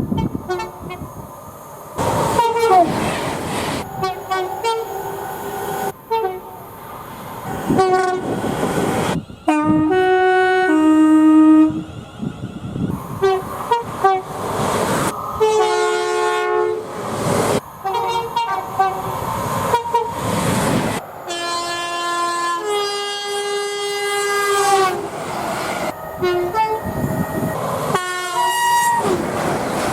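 A rapid series of train horn blasts, cut together one after another, many sounded as a higher note followed by a lower one, over the rumble and clatter of passing trains. The clips change abruptly every second or two.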